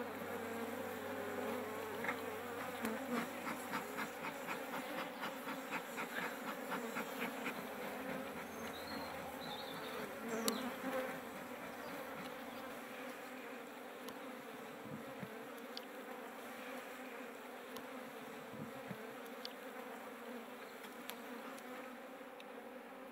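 Many honey bees buzzing around an open hive, a steady droning hum. A rapid run of light clicks sits over the hum for the first several seconds.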